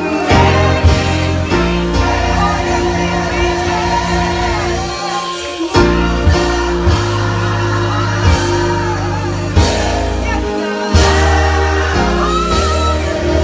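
Gospel music: voices singing over a live band, with held bass notes that change every second or two and occasional sharp drum hits.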